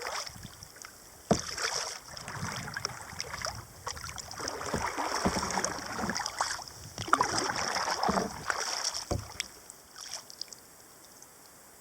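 Kayak paddling: the paddle blades dipping and splashing in the water in swells of strokes, with a few sharp knocks, likely the paddle against the hull. It gets quieter near the end.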